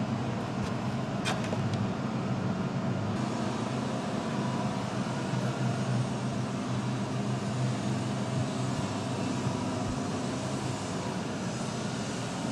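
Steady low rumble and hum, with one faint click about a second in.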